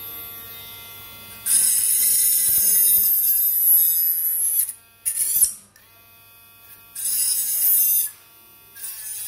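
Mini 12 V rotary engraving tool spinning a small cutting disc through a wooden stick. A light motor whine turns into a loud, hissing whine each time the disc bites the wood, in three spells: about three seconds long, then about one second, then again near the end.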